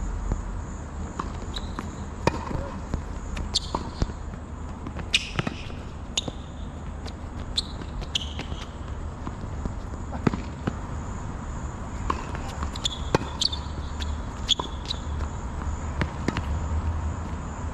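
Tennis rally on an outdoor hard court: repeated sharp pops of racket strings striking the ball and the ball bouncing on the court, over a steady low hum.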